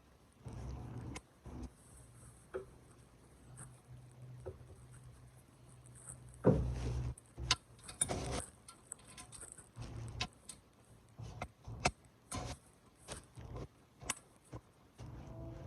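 Irregular metallic clicks and clinks of a hand wrench on the oil drain plug as it is tightened back in, with a louder knock about six and a half seconds in.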